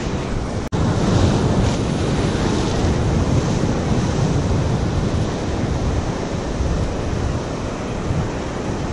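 Ocean surf breaking and washing over a rocky shoreline, a steady rushing, with wind buffeting the microphone.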